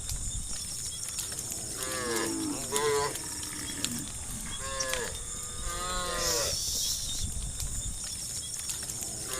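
Cows mooing, a few drawn-out calls that fall in pitch, coming in two bouts about two seconds and five seconds in.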